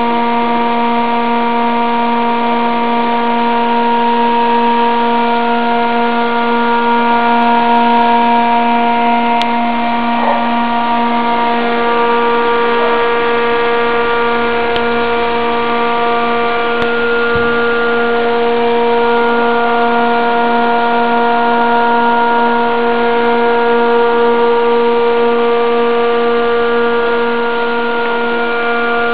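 SMS Sinus Double II 20 kVA UPS running with its cabinet open, its power transformer and inverter giving a loud, steady electrical hum made of several pitches sounding at once.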